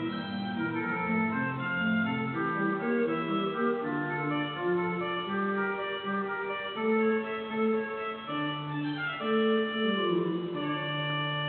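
Rosales Opus 14 pipe organ playing a piece, moving notes over a sustained bass, settling into a long held chord near the end.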